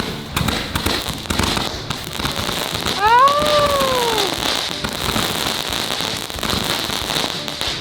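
Consumer aerial fireworks firing and bursting: rapid popping and crackling throughout. About three seconds in, a whistle-like tone rises and then falls.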